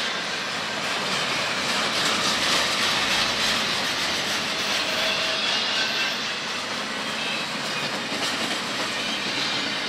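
Double-stack intermodal well cars rolling past on the rails, a steady rush and clatter of steel wheels on track, with faint brief high wheel squeals now and then.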